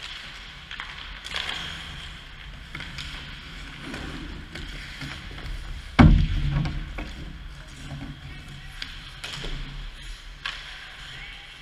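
Ice hockey play around the goal: skate blades scraping the ice and sticks and puck clacking irregularly, with one loud, heavy thud about halfway through.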